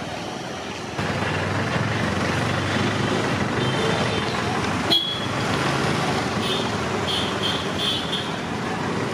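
Road traffic of motor scooters and cars running, from about a second in, with short high horn beeps: a few scattered, then three in quick succession near the end.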